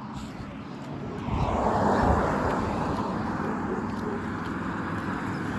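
Road traffic noise: a broad rush of vehicle and wind noise that swells about a second in and then holds steady, with no horn.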